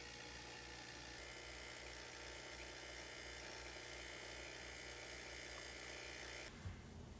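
A small electric motor buzzing steadily with a fast low pulsing, switched off suddenly near the end, followed by a light knock.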